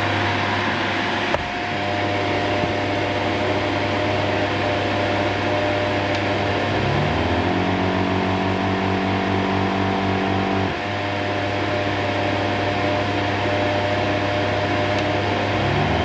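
Shark NV602 corded upright vacuum cleaner running with a steady motor hum. About seven seconds in, the tone rises as the brush roll speeds up from the slow hard-floor setting to the faster carpet setting. Just before eleven seconds it drops back to the slower sound, then rises again near the end.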